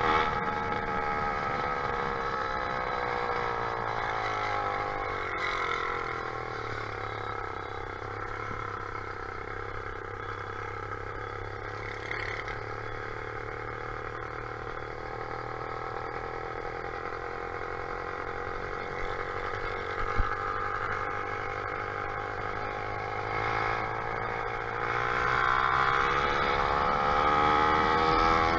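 Motorized bicycle's small engine running under way: its pitch falls over the first few seconds as it slows, holds steady, then climbs again near the end as it speeds up. A single sharp click comes about twenty seconds in.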